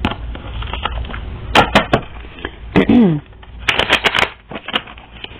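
Reading cards being shuffled and handled: a run of quick clicks and snaps, with one short falling vocal sound about three seconds in.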